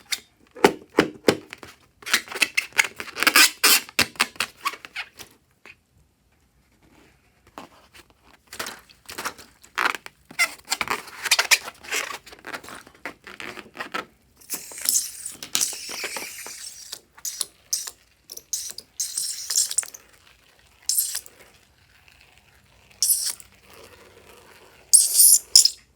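Slime being worked by hand: fast runs of sticky clicks and crackles, then several short bursts of high hiss in the second half.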